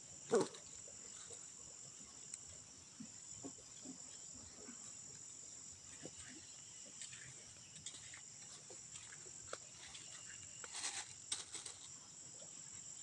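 Faint, steady high-pitched drone of an insect chorus, with scattered small rustles and knocks. A short sharp sound just after the start is the loudest thing, and a quick cluster of clicks comes near the end.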